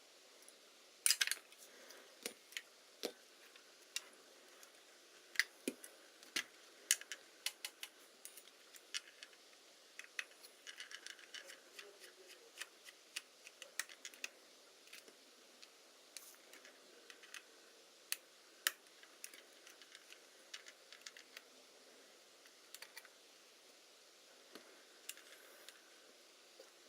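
Irregular small clicks and light taps of small parts and tools being handled while a Hasselblad Winder CW is worked on.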